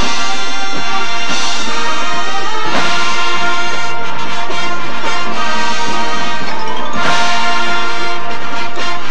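Marching band brass playing loud held chords, with strong new attacks about a third of the way in and again near the end.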